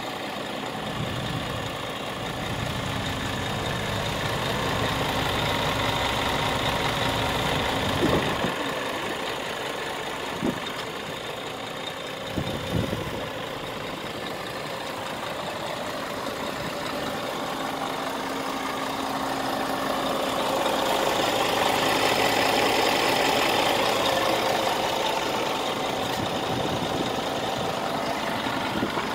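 Scania R490 tractor unit's 13-litre straight-six diesel idling steadily, with a few short knocks between about 8 and 13 seconds in.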